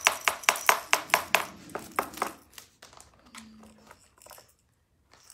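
A watch tapped rapidly against a plastic tray, sharp clicks about five a second, to draw a puppy's attention; the tapping stops after about two and a half seconds, leaving a few faint clicks and rustles as the puppy noses the watch in the tray.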